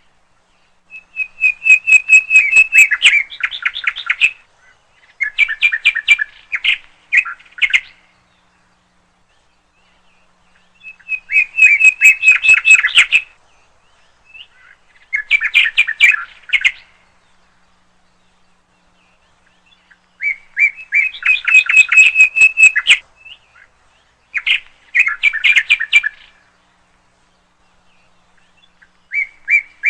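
A songbird singing in bouts of rapid, repeated chirping notes: a phrase of about three seconds followed by a shorter one, the pair repeated three times with pauses of a few seconds between.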